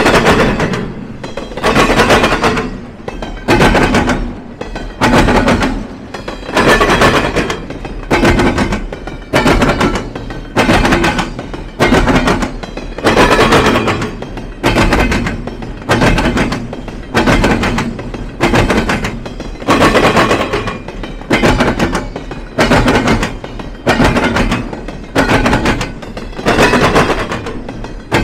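Train wheels banging over a railroad diamond crossing: a loud, ringing clank about every second and a half as each wheelset strikes the crossing's gaps.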